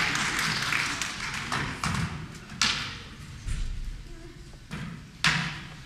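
Audience noise dying away, then a handful of sharp, irregular knocks and taps as a performer moves about a stage with a skateboard.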